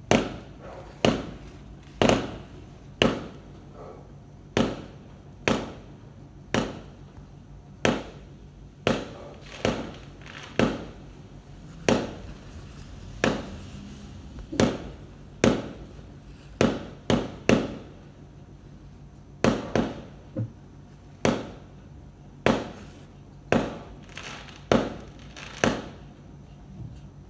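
Fireworks bursting: a steady string of sharp bangs, roughly one a second, each with a short echoing tail, and a few coming in quicker pairs.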